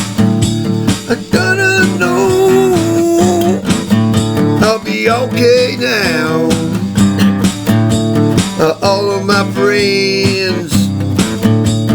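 Guitar-led music, with a steady bass and a melody line that slides between notes; no words are sung.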